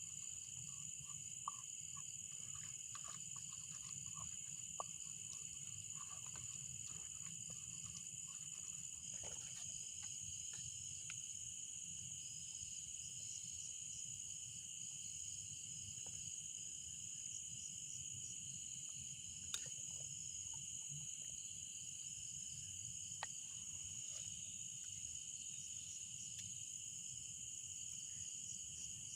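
Steady insect chorus: crickets chirring continuously at two high pitches. There is a faint low rumble underneath and a few sharp ticks scattered through.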